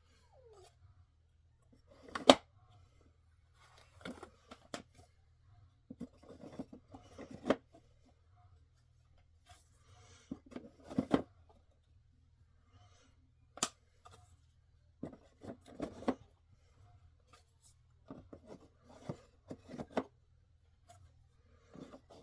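Pieces of a cartridge storage rack being handled and fitted together by hand: scattered clicks, knocks and rustling in short bursts, with a sharp knock about two seconds in and another sharp click past the middle.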